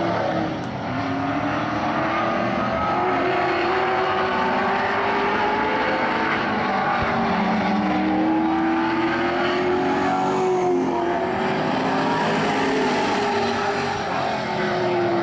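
A field of stock cars racing on a short oval, several engines running at once, their pitch rising and falling as the cars brake into the turns and accelerate out.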